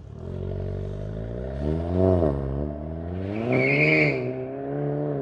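Mk7 VW GTI's 2.0-litre turbocharged four-cylinder, breathing through a CTS Turbo high-flow catted downpipe and the stock cat-back exhaust, accelerating hard away. The engine note climbs and drops back twice as it shifts up. A short high whistle comes near the second peak.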